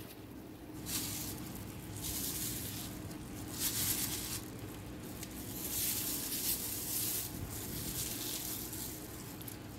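Wet squishing and plastic-glove rustle as a gloved hand handles masala-coated raw fish pieces and lays them in a glass bowl, in several short bursts.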